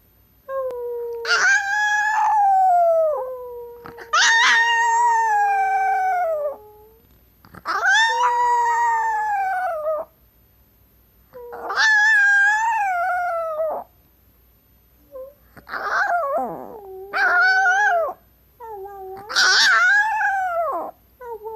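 Chihuahua howling: about six long, drawn-out howls, each rising and then falling in pitch, with short pauses between them.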